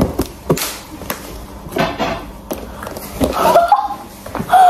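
A cardboard parcel box being handled and opened, with rustling of cardboard and packing and several sharp knocks. A brief voice is heard near the end.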